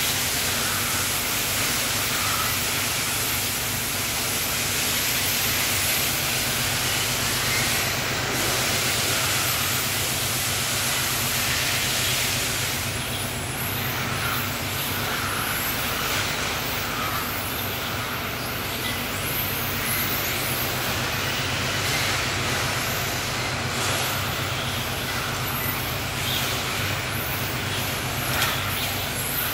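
Electric brushless RC touring cars racing: a steady high hiss of motors and tyres, with brief whines coming and going as cars pass, over a steady low hum.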